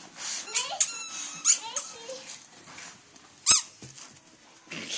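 A dog whining and yelping in a string of short, high-pitched squeals, the loudest a sharp one about three and a half seconds in. The whining is a sign of the dog's excitement.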